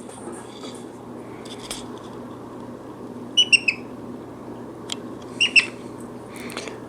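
Brown-headed parrot giving short high chirps: a quick run of three about halfway through and a pair about two seconds later, with a few sharp clicks in between.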